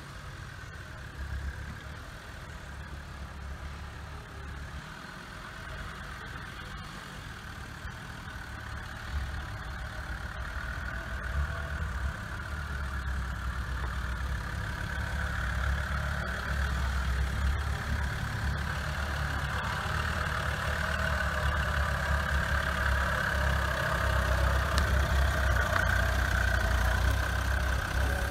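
Land Rover Defender 90's engine running as it drives slowly over rough ground, getting steadily louder as the vehicle comes up close.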